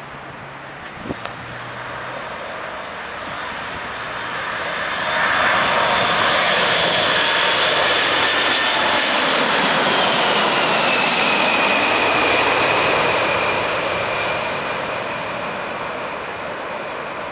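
Boeing 747-400's four turbofan engines at approach power as the jet passes low overhead on final: a rushing roar with a high whine swells up about four seconds in. The whine drops in pitch as the plane goes by, and the sound fades away as it recedes.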